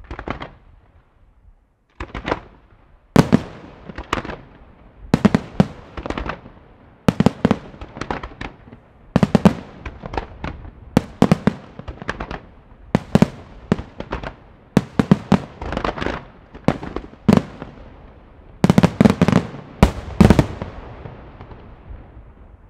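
Aerial firework shells bursting overhead in quick succession, a sharp bang every second or so after a brief lull near the start. Several come close together about three-quarters of the way through, the loudest part.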